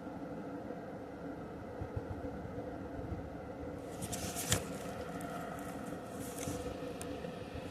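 Steady mechanical hum with several constant tones, and a short burst of clicking and scraping about halfway through, with one sharp knock at its loudest point and a brief hiss soon after.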